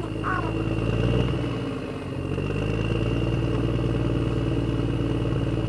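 A motor or engine running steadily with a low hum and a thin high tone, easing briefly about two seconds in before picking up again.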